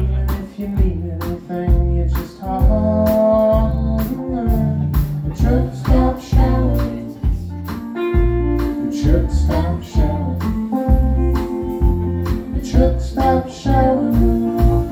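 Live band playing amplified electric guitars, bass guitar and a drum kit, with a steady drum beat.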